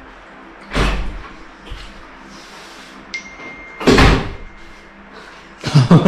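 Two short, loud knocks or bangs about three seconds apart, the second preceded by a thin steady high tone lasting about a second, over a faint low hum.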